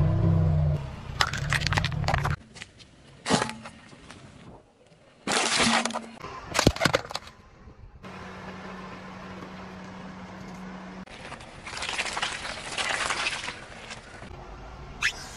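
A car tyre rolling over and crushing objects on asphalt in a string of short clips. A car engine hums under crackling at first, then come several sharp cracks and crunches, and a longer crushing sound near the end as a bunch of vine tomatoes is squashed.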